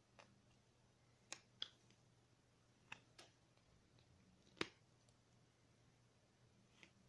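Carving knife cutting small chips from a wooden figure: a handful of short, sharp clicks, about seven in all, the loudest a little past halfway.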